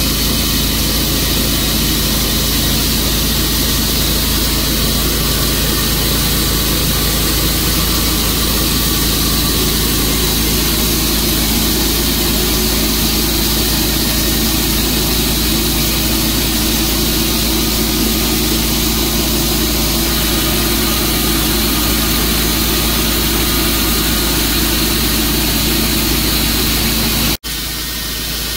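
Tru-Cut sawmill running steadily, its engine holding one constant note. About a second before the end the sound drops out for an instant and comes back quieter.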